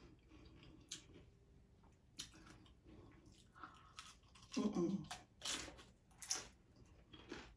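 Crunchy hard-shell taco being bitten and chewed close to the microphone: a string of short, sharp crunches, the loudest a little past the middle.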